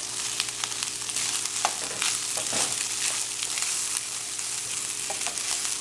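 Fried rice with vegetables and scrambled egg sizzling in a frying pan while a wooden spoon stirs and scrapes through it, with scattered clicks of the spoon against the pan.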